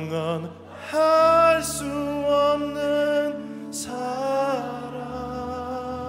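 Church worship band music: long held melody notes over an electric bass line played on an Alleva Coppolo LG5 five-string bass, the bass note changing about a second in and again near the end.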